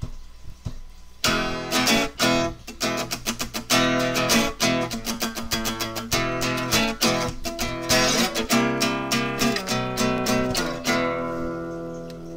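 Intro music of strummed guitar, starting about a second in with chords struck in quick succession, and a final chord left ringing and fading near the end.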